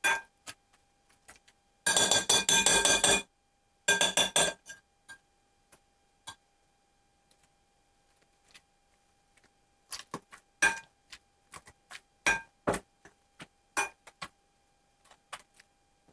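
Potato masher crushing raspberries in a bowl, its head knocking and clinking against the bowl: a quick run of strokes about two seconds in, a shorter run about four seconds in, then scattered single knocks later on.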